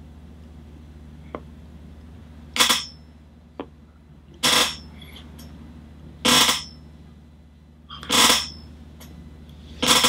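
Sounds from a man working through circular jaw movements while rolling his head: five short rushing noises roughly two seconds apart, with two faint clicks in the first few seconds.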